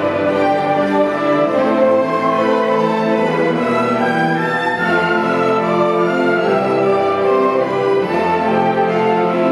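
Symphony orchestra playing an arrangement of a canon, with violins and cellos carrying held, overlapping melodic lines over the full ensemble.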